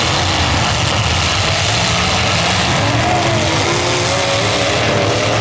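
Demolition derby cars' engines running and revving together in a loud, steady rumble, with several engine pitches rising and falling over one another.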